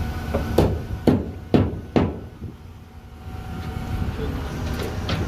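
A framing nail gun fires four times into wooden roof framing, the sharp shots about half a second apart. A steady low engine rumble runs underneath.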